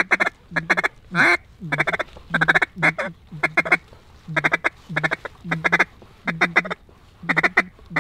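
Hand-blown mallard duck call quacking loud and steady in short runs of two or three quick notes, about two runs a second, calling to a flock of mallards circling over the decoys to bring them in.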